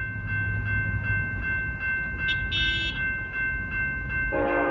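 Grade crossing bell ringing steadily, with BNSF SD70ACe locomotive horn sounding a loud chord that begins about four seconds in. A brief sharp honk is heard midway.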